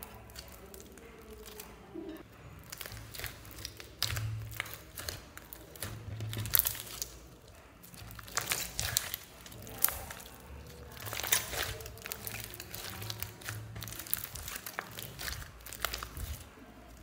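Hands squeezing and kneading a large mass of mixed slimes, making irregular wet clicks and crackles as the slime is pressed and pulled apart.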